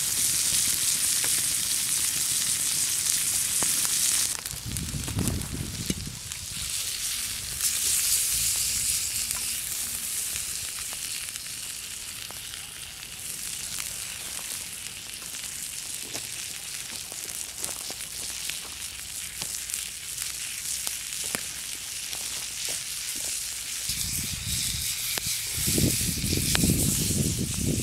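Beef steak sizzling on a hot flat stone over a wood fire: a steady hiss with scattered small pops and crackles. Low rumbles come about five seconds in and again near the end.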